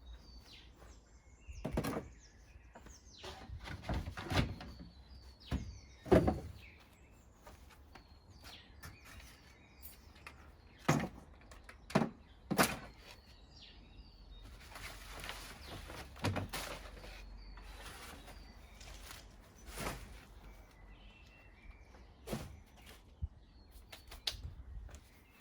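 Irregular clunks and knocks of feeders and food being moved about and set down on a garden bird table, about eight sharp ones, with small birds chirping throughout. A few seconds of steady hiss around the middle.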